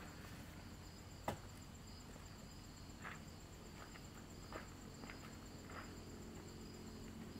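Faint, steady high-pitched trilling of crickets, with a sharp click about a second in and a few softer ticks and rustles after it.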